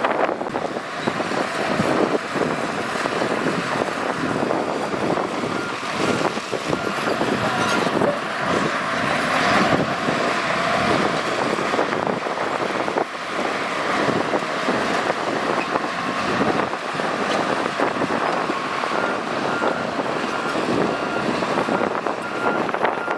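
Shantui bulldozer's diesel engine running under load while pushing gravel through mud, with steady clanking of the tracks and blade.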